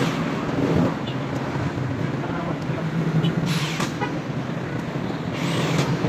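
Corded electric hand drill running and boring into a steel tube frame through wire mesh, with two spells of shrill bit-on-metal noise, about halfway and near the end.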